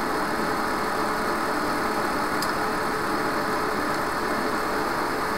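Steady hiss with a faint constant hum: the background noise of a low-quality webcam microphone.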